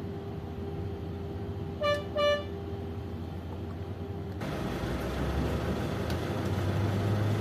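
Two short beeps about half a second apart over a steady low hum. About four and a half seconds in, a louder rough noise joins the hum.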